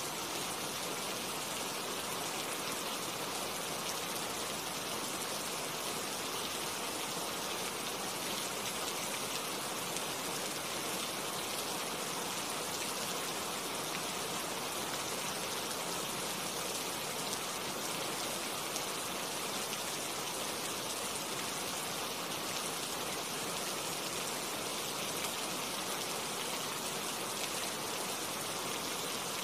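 Steady rain falling on tree foliage: an even, unbroken hiss of many drops with no single patter standing out.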